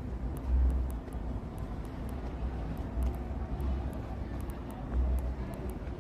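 City street background: steady traffic noise, with low rumbling swells every second or two.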